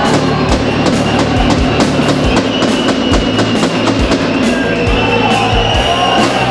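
Rock music with drums and guitar and a steady beat.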